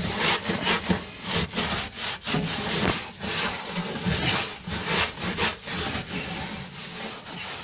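Repeated rough scrubbing strokes against the inside walls of a kitchen oven, wiping away baked-on grime that has been softened with caustic soda.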